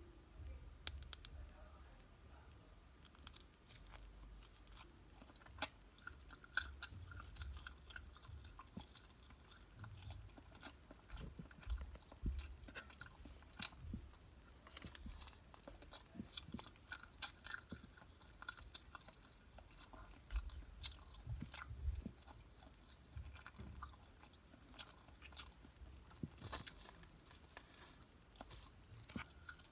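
Close-miked chewing and crunching of a snack, with many irregular sharp, crisp crunches.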